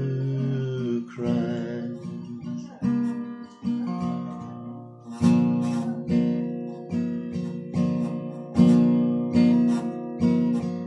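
Steel-string acoustic guitar strummed in chords for a song's outro, each chord struck and left ringing before the next, the strokes coming about once a second in the second half.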